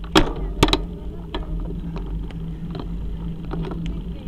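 Riding noise from a road bicycle: a steady low hum of tyres and wind, with sharp clicks and rattles from the bike and its rear-mounted camera, the loudest twice near the start.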